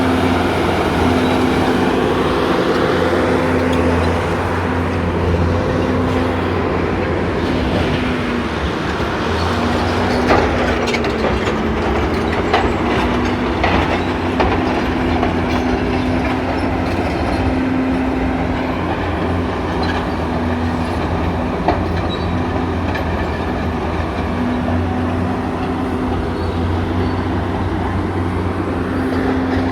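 Caterpillar D8T crawler bulldozer's diesel engine running steadily under work, with the clank and rattle of its steel tracks and a few sharp metal knocks.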